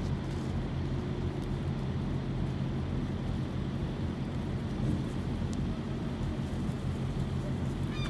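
Steady low rumble of an idling vehicle engine, with an even hum that does not change.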